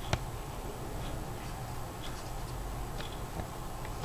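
Light handling noise of a tablet and its box: one sharp click just after the start, then a few faint ticks, over a steady low background hum.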